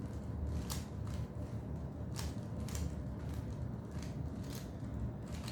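Rubik's Cube layers being twisted by hand: irregular plastic clicks, about two a second, over a steady low hum.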